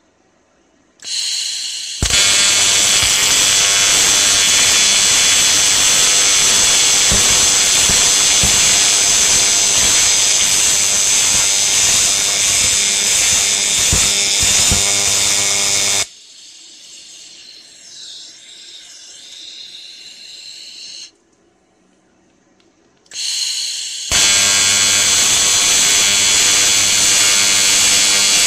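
TIG welding arc on 1 mm aluminium sheet, a loud steady buzz with a pitched hum in it, typical of AC TIG. Each strike comes just after a brief high hiss. The first arc starts about two seconds in and breaks off a little past halfway, leaving a quieter hiss and then near silence. The arc is struck again a few seconds before the end.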